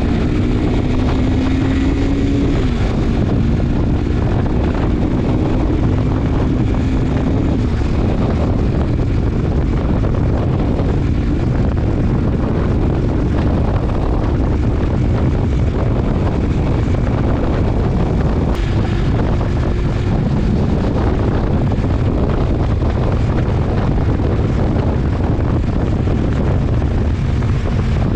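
Single-cylinder sport motorcycle running at highway speed, heard through an action camera's microphone under heavy wind buffeting. The engine's steady hum is clear in the first few seconds, then sinks beneath the wind rush.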